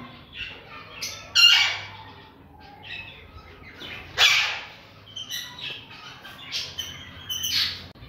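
Lovebirds squawking: a few short, harsh calls, the loudest about four seconds in and others about a second and a half in and near the end, with softer chirps between.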